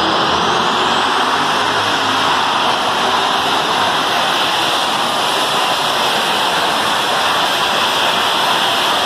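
Modified Case IH pulling tractor running at full throttle as it drags the weight sled, a loud steady roar. A high whine climbs in pitch in the first second or so, then holds.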